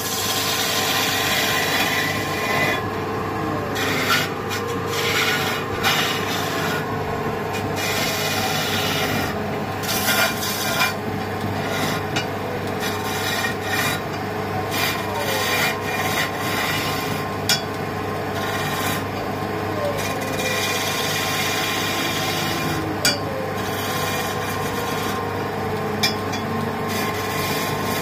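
Wood lathe running while a hand-held turning chisel cuts a spinning wooden spindle: a scraping hiss that swells and eases as the tool bites, over the machine's steady hum, with a few sharp clicks.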